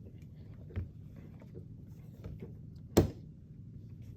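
A sip of beer with quiet handling clicks and a soft knock about a second in, then one sharp knock near the end as the beer container is set down on a hard surface.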